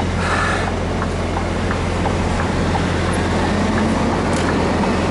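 Scania truck's diesel engine running steadily, heard from inside the cab while driving, with a few faint ticks.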